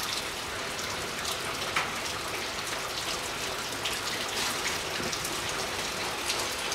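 Steady rain falling: an even hiss with scattered drops ticking.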